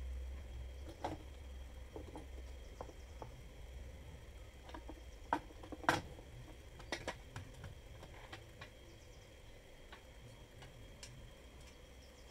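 Light clicks and knocks of plastic and metal parts as an angle grinder sliding stand is handled, its carriage slid on steel rods and its base tipped up. Two louder knocks come a little past halfway.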